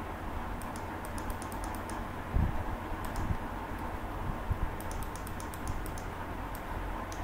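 Light clicking at a computer's keyboard and mouse, in quick runs of several clicks a second, with a dull thump about two and a half seconds in.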